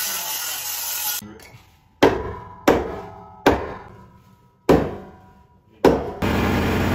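A loud rushing noise cuts off about a second in, followed by five sharp, ringing impacts at uneven spacing, each dying away. Near the end a steady engine hum starts.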